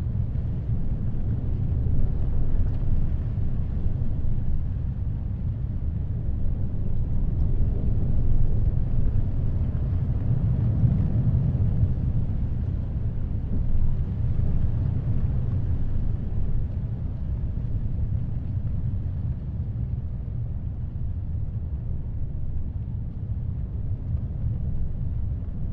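Heavy ocean surf and wind: a steady, deep rumble of water and gusts that swells and eases slowly.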